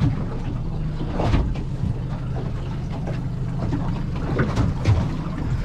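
Small aluminium boat's outboard motor idling with a steady low hum, with a few short louder swishes over it.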